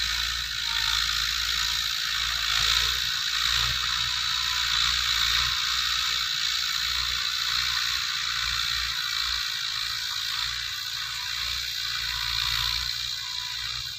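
Massey Ferguson 185 tractor's four-cylinder diesel running under load with its rotary tiller churning the soil: a steady mechanical clatter and whir.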